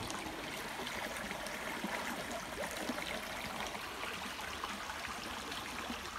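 Small clear forest creek running shallow over rocks, a steady babble of flowing water.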